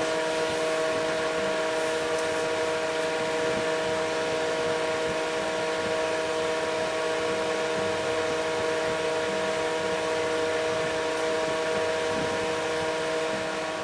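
Steady hum of running electrical equipment: several constant tones over an even whirring hiss, unchanging throughout.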